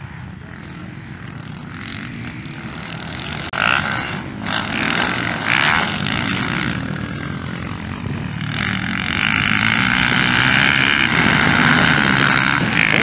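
Motocross bike engines revving hard as riders race past on the dirt track, with several surges a few seconds in and a long, loud high-revving stretch from about eight seconds in.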